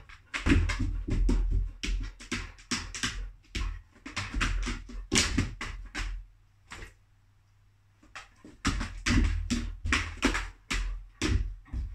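Clear plastic storage box knocking and scraping as a dog steps in and out of it, its claws clattering on the thin plastic and the box thudding on the floor. A rapid run of knocks and scrapes that falls quiet for a couple of seconds a little past the middle, then starts again.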